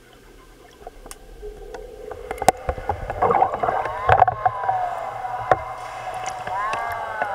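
Pool water sloshing and splashing around a submerged waterproof camera, heard muffled through the water. The first two seconds are quiet, then the water noise builds, with a few sharp knocks.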